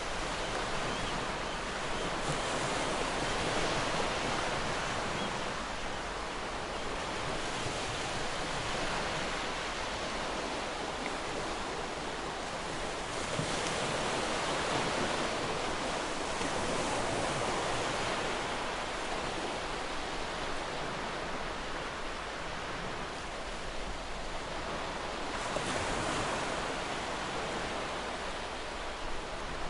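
Ocean waves breaking and washing on a shore, a steady surf that swells and eases every few seconds.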